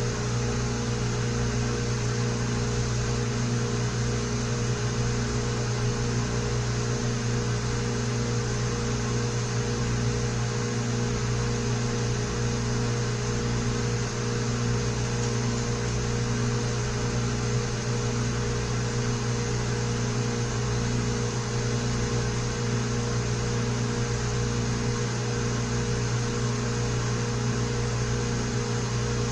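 Electric motor running steadily: an even, unchanging hum with a strong low tone.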